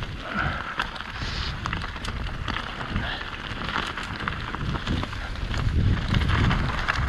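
Mountain bike descending fast on a loose gravel and dirt forest track: tyres crunching over stones, with rattling and many sharp clicks from stones and the bike, and wind buffeting the microphone as a low rumble.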